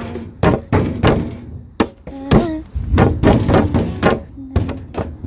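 Bare hands slapping and tapping out a fast, irregular run of thunks and taps, a few of them carrying a short pitched ring.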